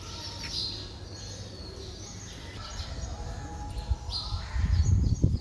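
Birds chirping and calling in short, scattered notes. A low rumble swells on the microphone about four and a half seconds in and is the loudest sound.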